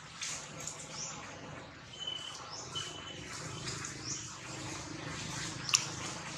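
Birds chirping over and over in short, high, falling chirps, with a couple of brief steady whistles in the first half. A single sharp click comes about two-thirds of the way through.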